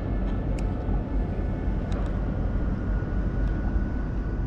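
Steady low outdoor rumble, with a faint thin whine that comes in about two and a half seconds in and a couple of faint ticks.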